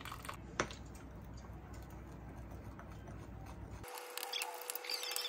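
A thin stream of hot water poured faintly onto cocoa powder in a glass bowl. About four seconds in, metal chopsticks start clicking and scraping against the glass as they stir the cocoa into a paste.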